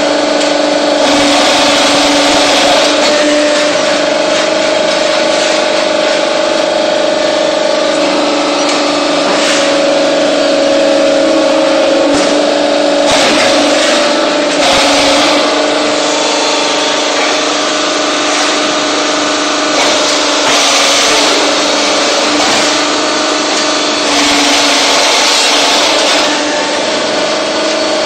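Hydraulic press block-making machine running: a steady mechanical drone with two held tones, and louder hissing stretches that come and go every few seconds.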